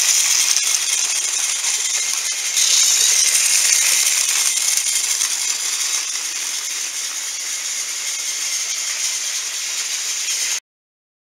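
A battery-powered TrackMaster Sir Handel toy engine's motor and wheels running along plastic track while pulling cars, with a steady high rattling whir. The sound cuts off suddenly near the end.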